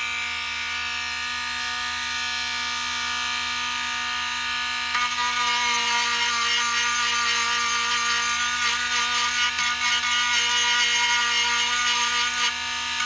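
Dremel rotary tool with a small cutting blade running at a steady whine. About five seconds in it bites into balsa wood and the sound turns louder and rougher as it cuts out the rough shape of a propeller.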